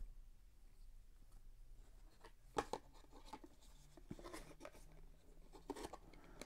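Faint handling of packaging: hands rubbing and turning a GoPro's black plastic display mount and cardboard box insert, with a few light plastic clicks and taps, the sharpest about two and a half seconds in.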